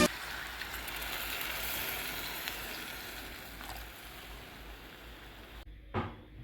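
Pork sizzling in a pot: a steady hiss with faint crackles that slowly fades, then cuts off, followed by a single short knock near the end.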